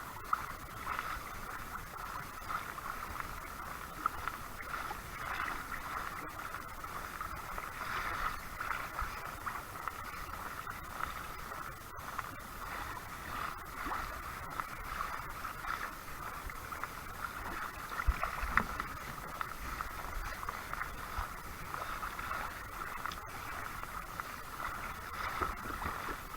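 Water gurgling and splashing steadily against a kayak's hull as it moves, with a few light knocks.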